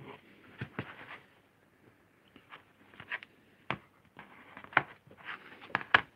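A lino block being lifted, turned and set back down on a wooden bench hook: a string of sharp taps and knocks with short scraping slides of the block against the board. The loudest knocks come near the end.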